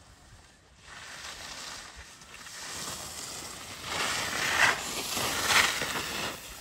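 Telemark skis carving turns in snow: a swishing scrape of the ski edges that grows louder as the skier comes close, with two loud swooshes about a second apart past the middle.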